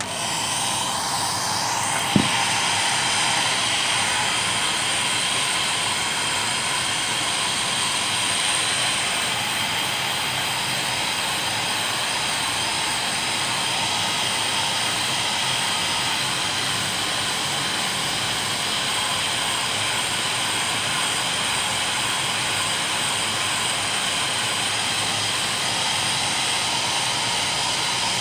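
Handheld hair dryer switched on and running at full setting, a steady rushing whoosh of hot air blown onto damp clothes; a single short knock about two seconds in.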